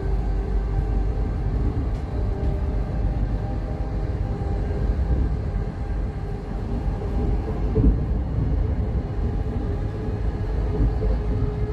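Rumble of wheels on rail inside a Siemens Class 700 electric multiple unit at about 65 mph and gaining speed, with a steady whine above it that edges up in pitch near the end. One louder knock about eight seconds in.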